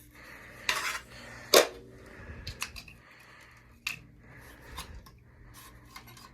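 Sharp metallic clicks and clacks from an Erie zone valve being handled and worked by hand, the loudest knock about a second and a half in, then lighter clicks. The valve is stuck and will not move freely.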